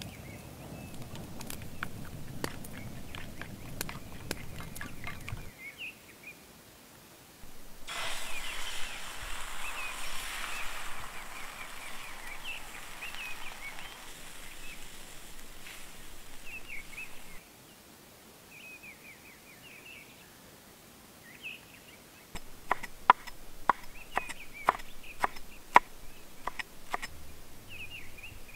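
Beaten egg sizzling in a hot cast-iron skillet for about ten seconds, starting and stopping abruptly, with small birds chirping throughout. Near the end comes a quick run of sharp clicks and taps.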